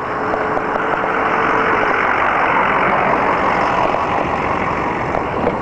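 Dump truck engine running close by: a steady rush of engine and road noise that swells to its loudest in the middle, with a steady tone through the first couple of seconds.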